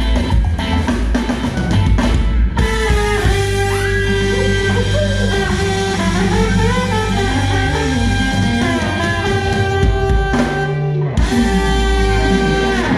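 Live band playing a song, with electric guitar over a drum kit.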